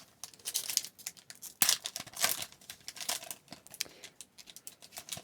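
Trading card pack wrapper being torn open and crinkled in the hands, an irregular run of crackles and rustles.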